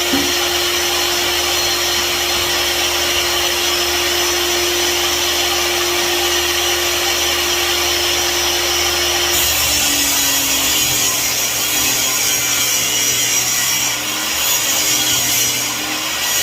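Electric power tool running steadily on wood during carpentry work. The sound changes abruptly about nine and a half seconds in, as if to another cut or tool.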